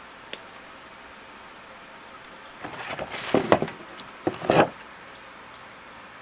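Handling of a vinyl Funko Pop figure and its small plastic keyblade accessory: a light click, then a run of plastic rubbing, scraping and sharp clicks as the keyblade is pushed against the figure's hand.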